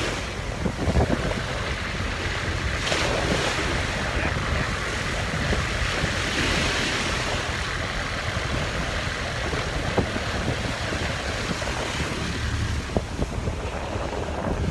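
Sea surf washing onto the shore, a steady rush that swells around the middle, with wind rumbling on the microphone.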